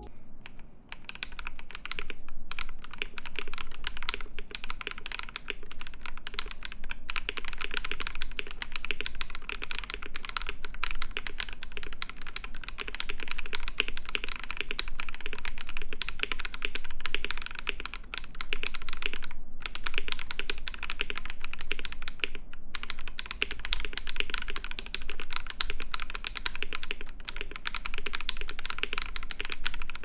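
Fast, continuous typing on a KBD67 Lite mechanical keyboard with Akko CS Red Rose linear switches (lubed with Krytox 205g0), a polycarbonate plate and GMK 8008 ABS keycaps: a dense stream of keystroke clacks with a few brief breaks.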